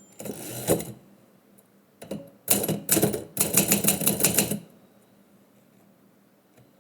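Typewriter keys struck in quick runs: a short burst near the start, then a longer flurry of rapid keystrokes from about two and a half seconds to four and a half seconds in.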